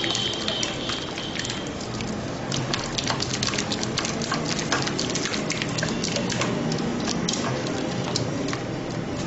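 Wooden spoon beating thick custard in a nonstick pot: a fast, irregular run of clicks and scrapes of the spoon against the pot.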